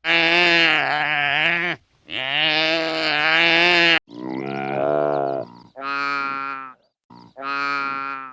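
An animal bleating: a run of long, wavering bleats, the first two nearly two seconds each, followed by shorter ones.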